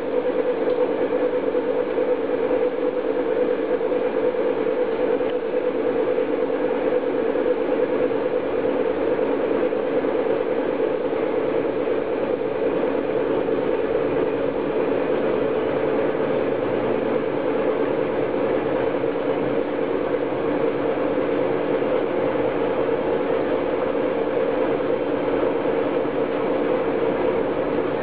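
Home-built magnet motor and dynamo rig running steadily: an even mechanical whir with a strong, steady hum.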